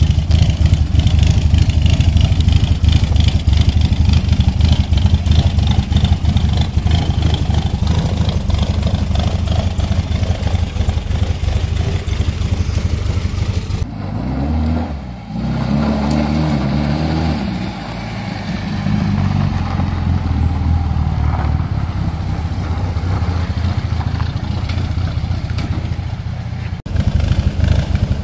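Morris Minor's A-series engine running with a steady low beat. About halfway in it revs, rising and falling in pitch for a few seconds as the car moves off, then settles back to a steady run.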